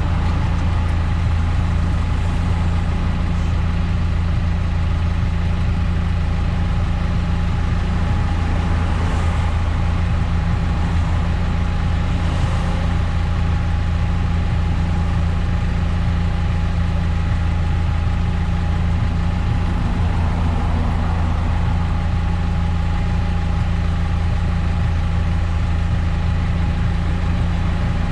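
Eunos Roadster running: a steady, unchanging low drone of engine and road noise with a faint steady whine above it.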